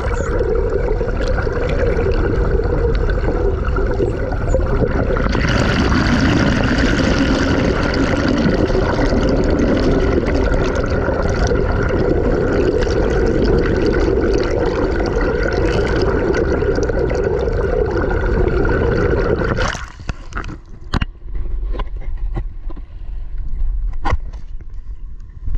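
Underwater sound: a dense, steady hiss with a low hum, growing louder about five seconds in. About twenty seconds in it cuts to open air at a small boat's bow, quieter, with water noise and a few sharp knocks.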